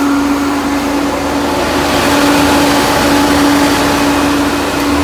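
Peugeot 406's electric radiator cooling fan running with the engine on: a steady hum and rush of air that grows louder about two seconds in. The fan is being checked for both of its speeds, and its high speed works normally.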